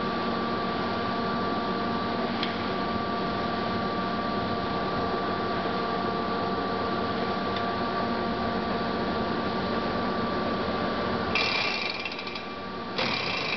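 Lodge & Shipley Magnaturn engine lathe running, with a steady hum and whine from its drive. Near the end, two short stretches of higher-pitched mechanical rattling come in as the carriage's rapid traverse is worked.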